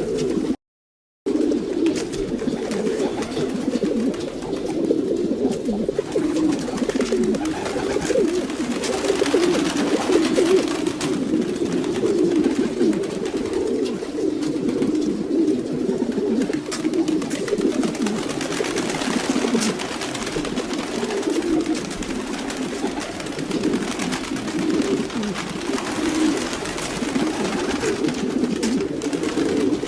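A flock of domestic pigeons cooing continuously, many low coos overlapping. The sound cuts out completely for under a second, about half a second in.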